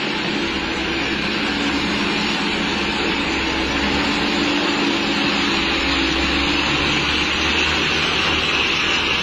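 Diesel engine of a Mitsubishi Fuso Canter dump truck running as the truck drives up and passes close by, with a steady hiss over it.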